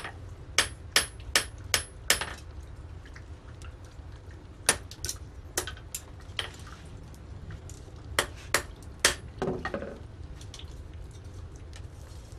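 Blacksmith's hammer striking iron on an anvil in three short runs of ringing blows, about two or three a second, with pauses between the runs. A steady low rumble sits underneath.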